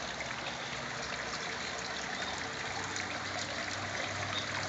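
Water steadily trickling and splashing into a barrel fish tank from the aquaponic system's return pipe.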